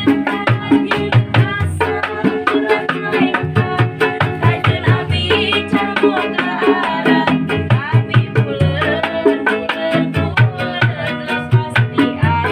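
Street buskers' music: hand drums keep a steady beat under a melody, with singing.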